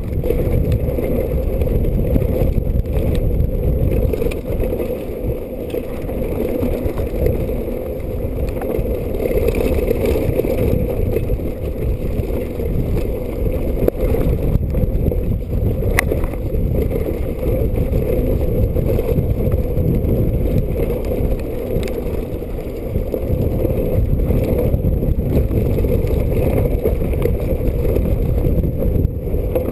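Mountain bike descending a rocky dirt trail: a steady rumble of tyres on dirt and air rushing past, with one sharp click about sixteen seconds in.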